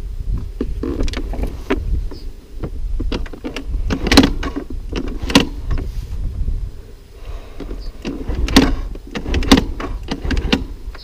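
Plastic bodywork of a fallen Yamaha Aerox scooter knocking and scraping, with grass and weeds rustling, as it is hauled by its rear grab rail out of the undergrowth. Irregular clicks and scrapes over a steady low rumble, loudest in a few clusters about four, five and a half, eight and a half and nine and a half seconds in.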